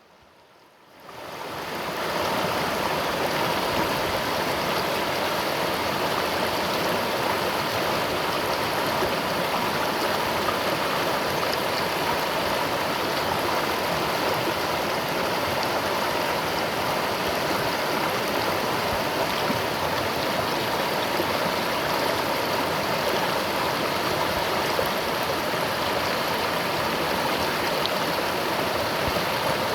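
River water flowing steadily, a continuous rushing with a babbling texture. It fades in over the first two seconds, then holds even.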